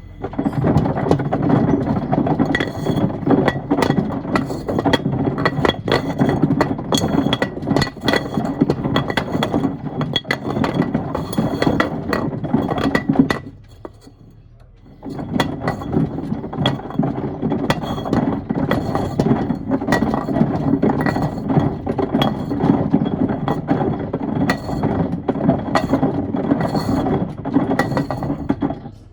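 Wood pieces and stones tumbling in the drum of a Miele washing machine, a loud, continuous clatter of knocks and clinks. About 13 seconds in, the drum stops for a second or two, then starts again.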